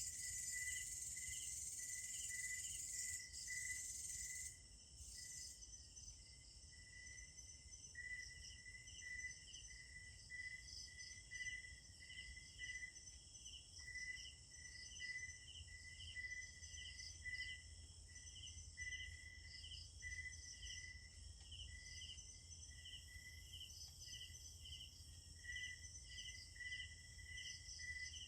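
Night insects, crickets among them, chirping in a steady rhythm of about two pulses a second, with a higher continuous insect buzz that drops out about four or five seconds in.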